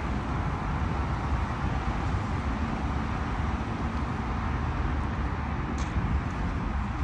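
Steady background noise of road traffic, with a faint click near the end.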